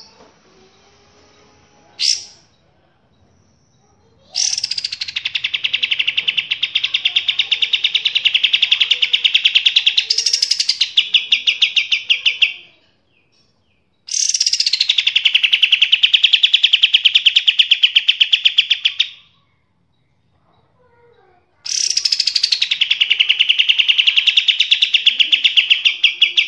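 A songbird gives a short sharp chirp, then sings three long, rapid trills, each lasting about five to eight seconds with short pauses between. Each trill starts high, drops quickly in pitch, then holds steady.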